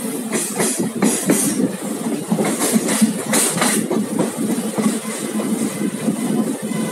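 Passenger train coach running at speed, its wheels giving a steady rumble on the track, with two quick runs of wheel clatter over rail joints in the first half.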